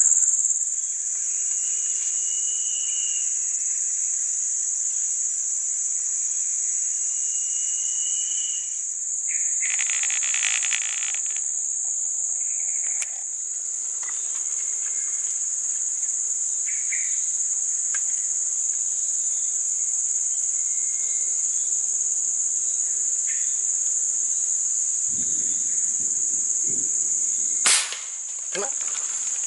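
Steady high-pitched drone of forest insects, with a few faint short whistles. A single sharp click or crack sounds near the end, the loudest moment.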